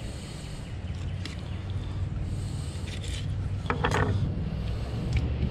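Fillet knife scraping and rubbing against a speckled trout fillet and a plastic cutting board, over a steady low rumble, with a brief louder sound about four seconds in.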